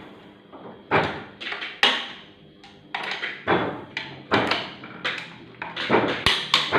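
Oliver offset printing press running, with a string of sharp mechanical clacks and knocks about one or two a second.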